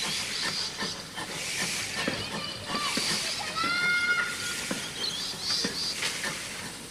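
Steam locomotive standing with steam hissing steadily, a few light knocks, and a short, flat, high-pitched call about three and a half seconds in.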